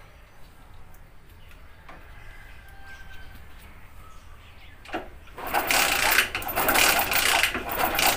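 Hero Honda Splendor Plus single-cylinder four-stroke being kicked over with its spark plug out, as a spark test for a no-start. A loud, fast mechanical clatter from the kick-starter and the turning engine starts about five seconds in, after a few quieter seconds of handling.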